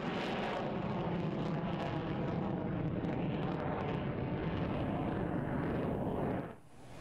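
F-15 Eagle fighter jet flying overhead with both engines in afterburner: steady jet noise that cuts off abruptly near the end.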